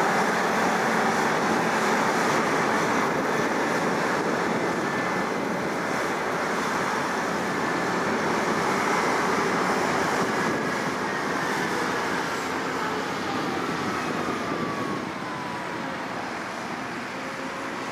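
New Holland CR9.90 combine harvester running in the field, a steady dense machine noise of engine and threshing drives. A faint falling whine shows partway through, and the sound gets quieter in the last few seconds.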